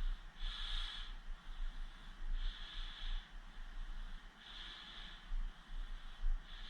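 A person breathing heavily, one hissing breath about every two seconds, over a low rumble of wind or handling on the microphone.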